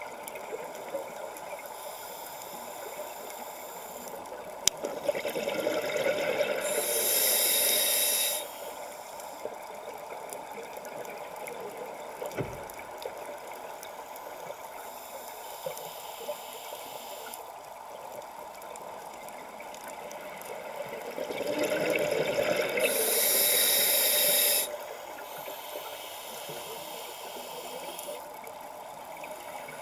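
Scuba diver breathing through a regulator underwater, slow breaths: a soft inhale hiss, then a loud rush of exhaled bubbles, twice, about a quarter of the way in and again near three quarters, over a steady underwater hiss.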